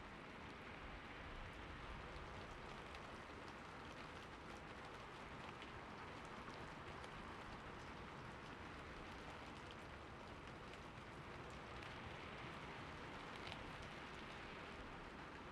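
Steady rain falling, an even hiss with many individual drops ticking on a surface.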